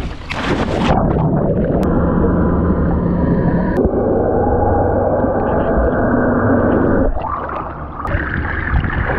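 Sea water heard by a camera plunged beneath the surface: a splash, then a muffled, dense rushing and gurgling of water and bubbles. The sound opens out again about seven seconds in, as the camera comes back up.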